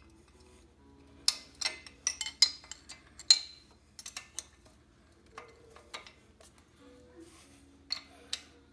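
Steel box-end spanner clinking on a Shovelhead cylinder head bolt as the bolt is loosened a turn and the spanner is refitted: a run of sharp metallic clicks bunched from a little over a second in, with a few more near the end.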